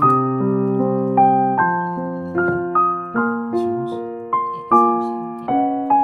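Background piano music: a gentle melody of struck single notes over held lower chords.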